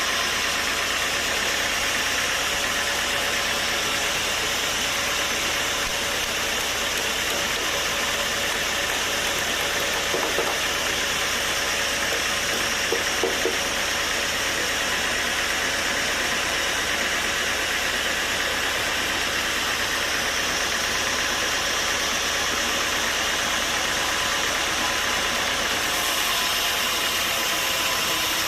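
Sawmill machinery running steadily: a constant engine-like drone under a dense hiss, with a few faint knocks about a third of the way through and near the middle.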